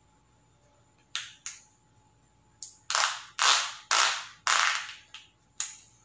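Cycling shoe straps being ripped open and fastened by hand: a run of about nine short, sharp rasps, the loudest bunched together from about three to five seconds in.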